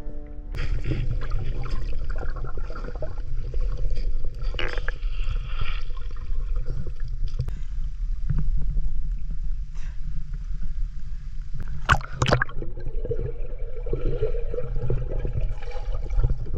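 Lake water heard through a waterproof action camera as swimmers move underwater and at the surface: a muffled, churning low rumble with sloshing. Two short sharp noises come about twelve seconds in.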